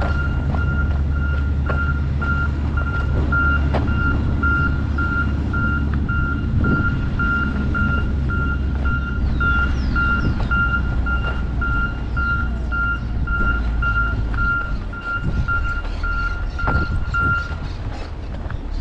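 A vehicle's reversing alarm beeping on one high tone, a few quick beeps a second, over the low rumble of a running engine. The beeping stops near the end.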